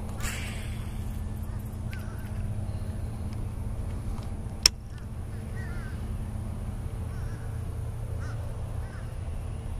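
Birds giving short calls every few seconds over a steady low rumble, with a single sharp click about halfway through.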